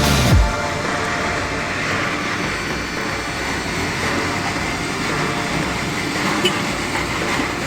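Steady running noise of a motor vehicle on the road, a continuous even rumble and hiss. A cut from music comes just after the start.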